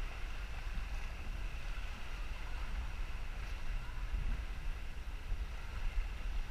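Small motorboat under way, a steady low rumble with water and wind noise over it.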